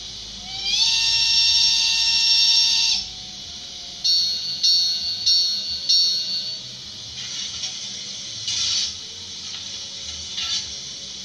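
DCC sound decoder of a model Oi1 steam locomotive playing its whistle through a small speaker. One long blast of about two seconds slides up in pitch as it opens. About a second later come four short toots, then a few short hisses of steam.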